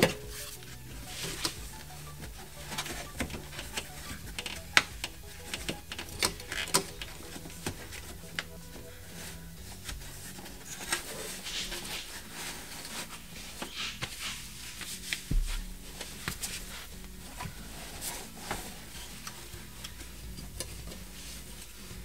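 Sheets of sound-deadening fabric being handled and pressed into place by hand: soft rustling with many scattered light clicks and knocks.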